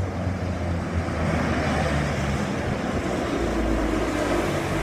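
Shanghai Transrapid maglev train pulling into the platform and sliding past at close range: a steady rushing sound with a low hum underneath, growing a little louder after the first second.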